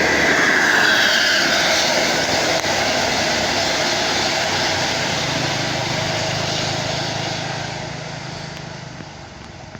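A medium tour bus's diesel engine and tyres passing close and pulling away, loudest in the first couple of seconds and fading over the last few.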